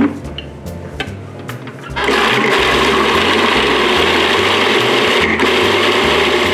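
Countertop food processor, its lid clicked into place with a few knocks, then switching on about two seconds in and running steadily, chopping kale and edamame into mashed avocado.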